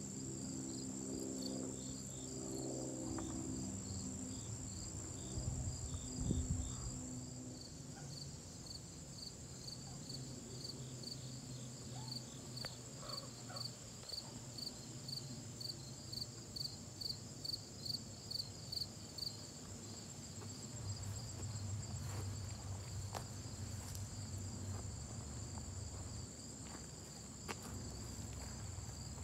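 Insects calling: one steady, high-pitched trill that never stops, over a second insect chirping in a regular pulse of about two to three chirps a second. A low hum sounds underneath for the first several seconds, then fades out.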